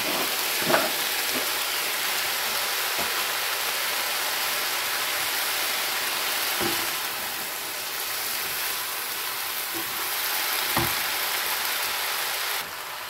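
Vegetables sizzling steadily in hot oil in a frying pan as they are stir-fried with a wooden spatula, with a few short knocks of the spatula against the pan. The sizzle drops off suddenly near the end.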